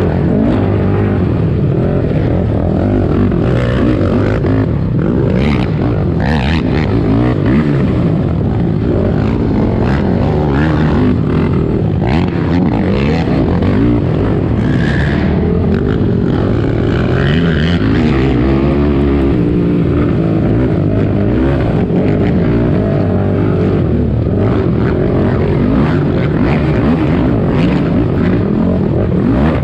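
Yamaha YFZ450 race quad's single-cylinder four-stroke engine running hard, its pitch rising and falling as the throttle is opened and closed. It is heard loud and close from a camera mounted on the quad, with a few short knocks.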